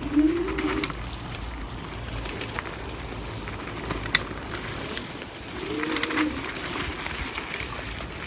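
A dove cooing twice, low hooting calls that rise and fall, about five seconds apart, over the rumble and scattered clicks of an electric scooter riding a rough dirt forest trail.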